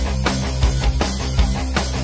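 Background music: hard rock with a steady beat.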